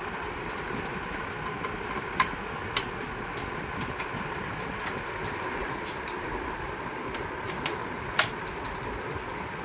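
Sharp clicks and taps of computer parts and tools being handled, three louder ones about two seconds in, a moment later, and near the end, over a steady whirring hum.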